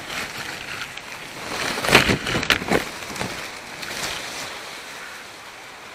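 Rough rushing and brushing right at a camera trap's microphone as an Asian elephant's trunk and body rub against the camera and the leaves around it, loudest in a cluster of whooshes about two to three seconds in.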